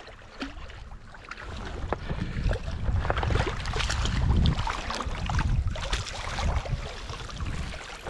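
Water splashing and sloshing in quick, irregular bursts, with wind rumbling on the microphone.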